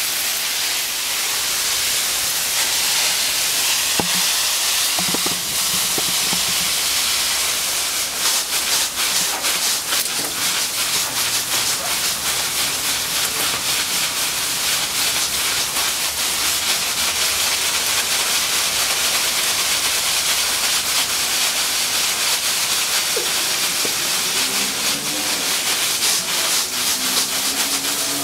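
Garden hose spraying water in a steady hiss, with drops spattering sharply from about eight seconds in.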